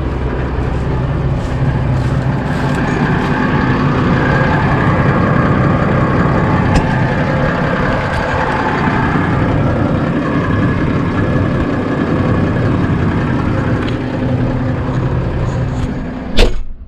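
Case IH Puma 200 CVX tractor's six-cylinder diesel idling steadily with the cab door open. Near the end the cab door slams shut with a loud clunk, and the engine is then heard much quieter, muffled inside the cab.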